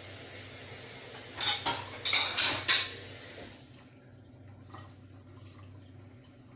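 A utensil clattering against a cooking pot in a quick series of about four strikes over a second and a half, over a steady cooking hiss that cuts out a little past halfway.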